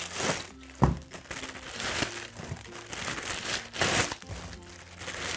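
Clear plastic packaging crinkling and rustling in several bursts as pencil pouches are unwrapped by hand, with a single knock about a second in.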